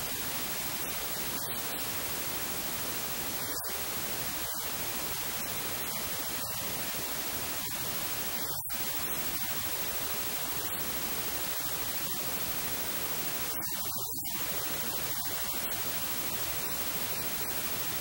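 Steady, even hiss of static noise with no other sound in it.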